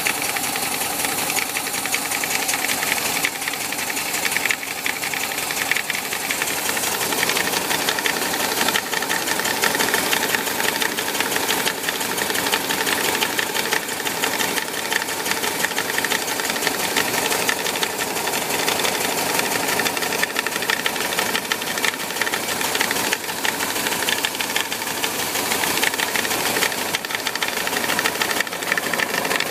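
1973 VW Bus's 1.8-litre Type 4 air-cooled flat-four engine running steadily with a strange rapid knocking that seems to come from the 12 o'clock position on the cooling fan, cause not yet found.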